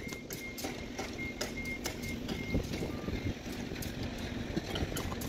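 Irregular light clicks and clinks of steel conveyor-belt fastener plates and a hinge pin being handled on a rubber belt, over steady background noise with a low hum. A faint, evenly repeated high peep sounds through the first three seconds.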